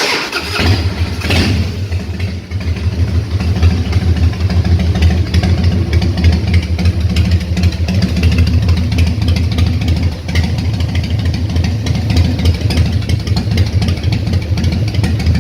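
Harley-Davidson Fat Boy V-twin engine, its carburetor freshly rebuilt, starting up suddenly and running on at a steady, throbbing idle as it warms up for tuning. The loudness briefly dips twice, about two and a half seconds in and again near ten seconds.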